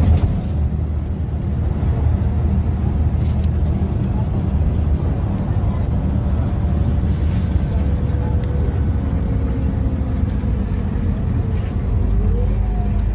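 Inside a LiAZ 5292.22-01 city bus under way: its MAN E0836 LOH01 six-cylinder compressed-natural-gas engine running steadily with road and tyre noise. In the second half a faint whine slowly falls in pitch.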